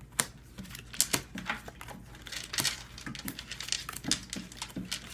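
Bicycle playing cards being dealt one by one onto a wooden surface: an irregular run of sharp, papery clicks and snaps, a few a second, as each card comes off the deck and lands.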